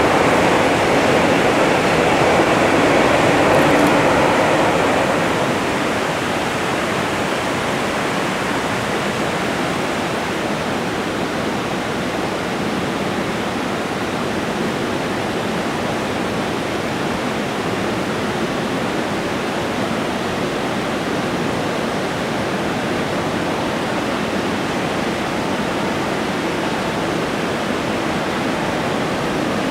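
Steady rushing of a mountain river in white water. A passing freight train's rumble fades out over the first few seconds.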